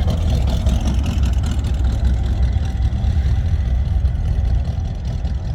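A car engine running with a steady, loud low rumble.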